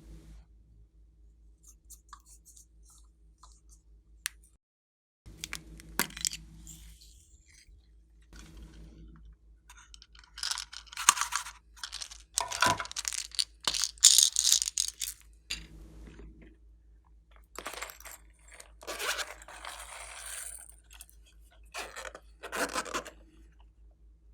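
Glossy slime being worked by hand, giving irregular bursts of crackling and popping with short pauses between them, loudest in the middle.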